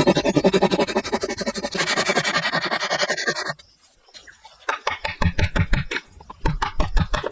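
Hand tool working wood: fast rasping strokes for about three and a half seconds, then after a short pause a run of sharp knocks.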